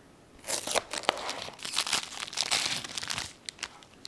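A foil biscuit wrapper being torn open and crinkled by hand, crackling for about three seconds, then a few light clicks as a biscuit is pulled out.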